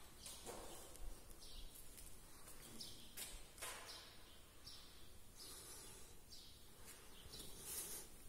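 Faint background ambience with scattered brief high-pitched chirps.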